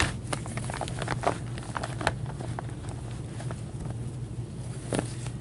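Rustling and scattered soft clicks of gloved hands rummaging in a cloth bag to draw out a card, over a steady low electrical hum.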